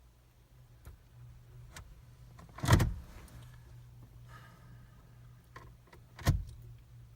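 Gear selector of a Jeep's NAG1 automatic being shifted with the engine off: two loud clunks about three and a half seconds apart, with lighter clicks around them, over a steady low hum. The shifting is meant to close a park/neutral interlock switch that is failing, which stops the engine from starting.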